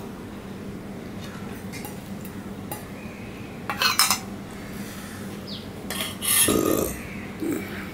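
Stainless-steel tableware clinking: a steel bowl is set down onto another steel bowl with a few sharp clinks just before four seconds in, then a spoon clatters and scrapes in a steel bowl of rice from about six seconds in, over a steady low hum.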